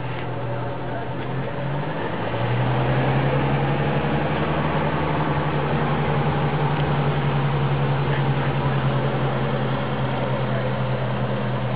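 Opel Rekord 1700's four-cylinder engine idling steadily; about two seconds in its pitch rises slightly and it gets louder, then holds even.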